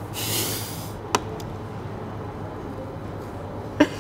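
Lid being worked off a small plastic sauce cup: a brief scraping rustle at the start, then a sharp plastic click about a second in and another near the end, over a steady low room hum.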